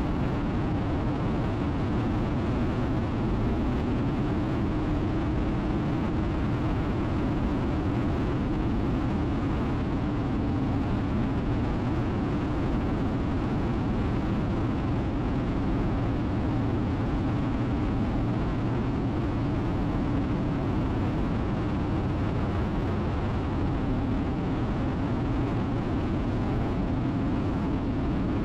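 Harley-Davidson Road King's V-twin engine cruising steadily, mixed with constant wind and road rush. The pitch holds with no gear changes or revving throughout.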